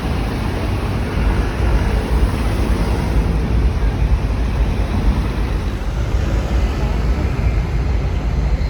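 Loud, steady city street ambience: traffic and voices under a heavy low rumble.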